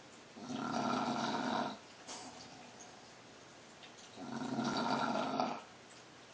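English bulldog snoring: two long snores about three and a half seconds apart, each lasting about a second and a half.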